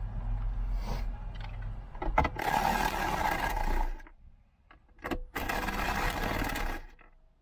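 Cordless power driver with a 10 mm socket running twice, each time for about a second and a half after a sharp click, backing out the console's factory bolts.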